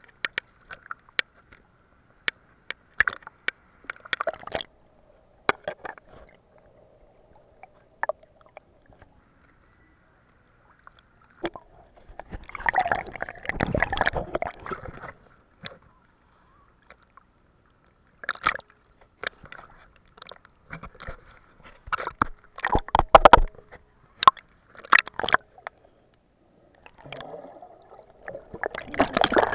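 Sea water sloshing and gurgling against an action camera held at the surface, with splashes and muffled bubbling as it dips under. The splashes come in irregular bursts, loudest around the middle and near the end.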